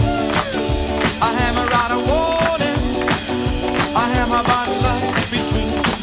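Upbeat band music with a steady drum beat about twice a second under sustained chords and a sliding melodic lead line, without recognisable words.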